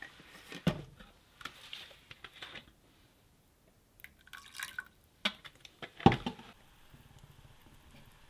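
Icing ingredients going into a stainless steel saucepan of melted butter: liquid pouring and dripping, with scattered knocks and clinks of containers and utensils against the pan, the loudest about six seconds in. After that comes a faint steady hiss as the maple icing heats and reduces while being stirred.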